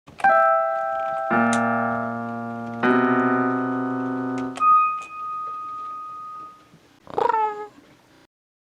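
Keyboard intro jingle: three held chords, then a single high note, ending with a short cat meow that falls in pitch.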